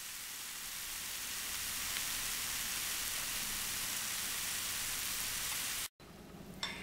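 A dish of cheese-topped home fries sizzling fresh from the broiler: a steady hiss that swells slightly over the first two seconds and cuts off suddenly near the end.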